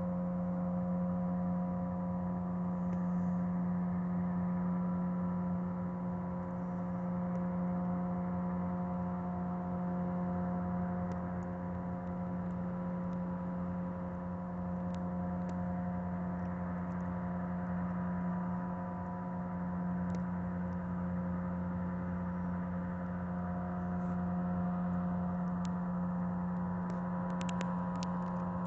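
Towboat's diesel engines droning steadily across the water as it pushes its barges, a constant low hum with steady higher tones over it. A few light ticks near the end.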